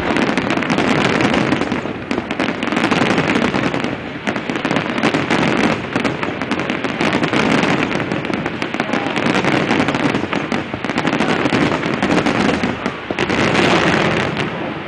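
Aerial fireworks display: many shells bursting and crackling at once in a dense, continuous stream of pops, easing briefly about two, four and thirteen seconds in.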